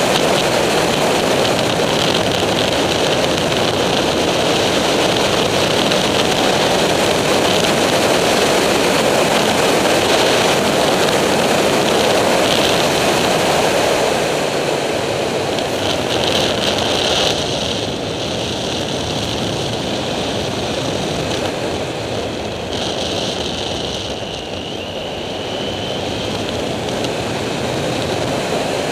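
Wind rushing over the microphone of a camera on a Triumph Street Triple at road speed, with the bike's three-cylinder engine running under it. The roar eases somewhat about halfway through and builds again near the end.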